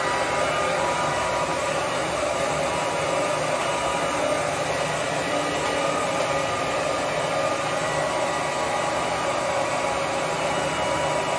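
Hair dryer blowing steadily, an even rush of air with a faint steady motor whine.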